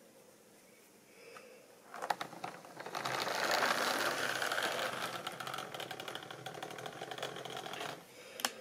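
Model railway diesel locomotive running past on the track, its small electric motor whirring with a rapid run of clicks from the wheels over the rail joints. It builds up about two seconds in, is loudest a second later, and dies away shortly before a single sharp click near the end.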